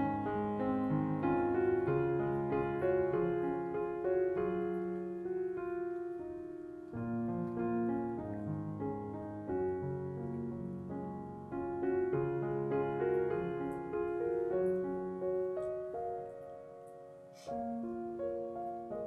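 Background piano music, a slow run of soft sustained notes.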